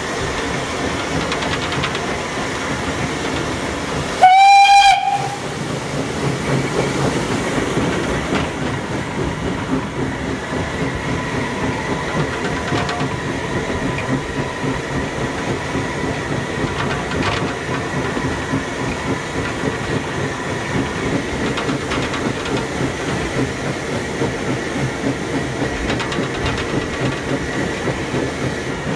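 Small steam locomotive running along the line, heard from its footplate: a steady beat of the engine and wheels on the track, with one short, loud blast of its steam whistle about four seconds in.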